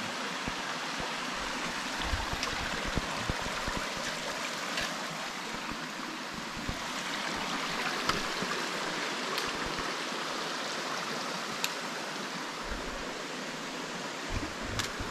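Mountain creek running over rocks and small cascades: a steady rush of water, with a few light knocks and ticks on top.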